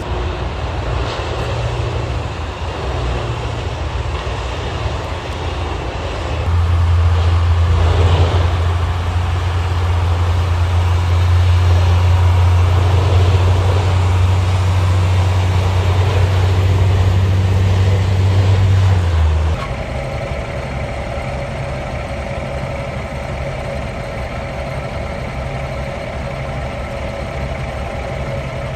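Heavy diesel engine running. It works harder and louder with a strong low drone for about thirteen seconds, from about six seconds in, then drops back to a steadier, quieter idle.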